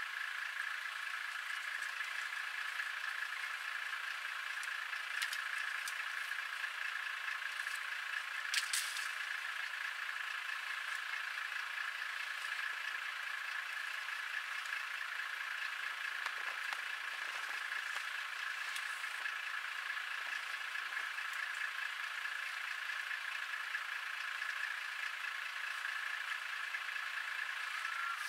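Steady high-pitched drone of insects calling in the bush, unchanging throughout, with one sharp snap about eight seconds in.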